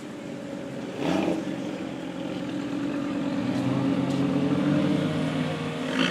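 Exotic sports car engine blipping its throttle about a second in, then running steadily and growing gradually louder.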